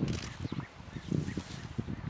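Wind buffeting the microphone in an open field, an uneven low rumble that eases off midway, with faint bird chirps above it.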